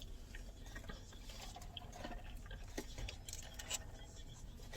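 Faint, scattered chewing and small mouth clicks of someone eating.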